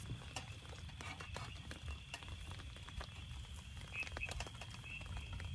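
Rain pattering on the tent fabric as irregular taps and drips, heard from inside the tent.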